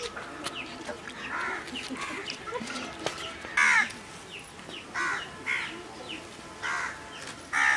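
Crows cawing repeatedly, a string of short harsh caws with the loudest about three and a half seconds in.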